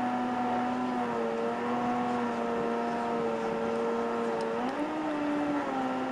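Boeing 767's jet engines heard inside the cabin after landing: a steady rush with several held whining tones that step slightly up in pitch about four and a half seconds in.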